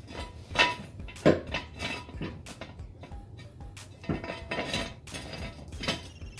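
Irregular metallic clanks and clinks, about seven knocks, the loudest two in the first second and a half.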